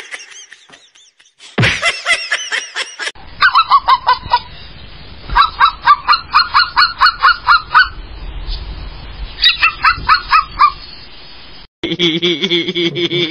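An animal calling in quick, repeated honks, several a second, in three runs with short gaps between them. A shorter cry comes before these, and a different, lower animal call starts near the end.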